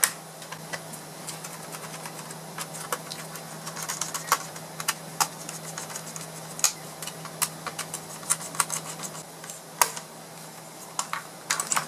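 Irregular light clicks, ticks and small rattles of laptop internal parts being handled and pried loose by hand.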